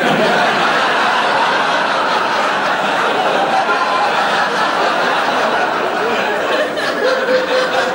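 Studio audience laughing, breaking out suddenly and holding loud and steady for several seconds.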